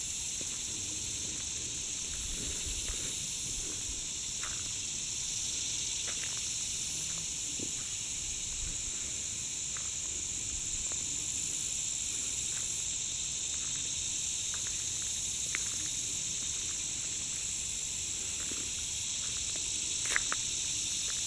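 Steady high-pitched chorus of summer insects, an unbroken hiss, with scattered faint clicks and a brief sharper click near the end.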